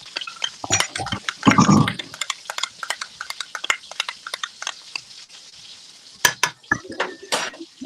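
A spoon scraping and tapping inside a measuring cup as thick sauce is emptied into a skillet, with a string of small clicks and knocks of utensil on cup and pan. There is a louder clatter about a second and a half in, and two sharp knocks near the end.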